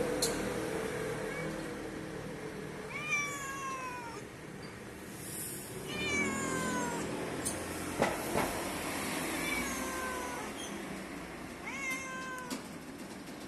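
Young ginger cat meowing, four drawn-out calls about three seconds apart, each falling in pitch, with a few sharp clicks between them.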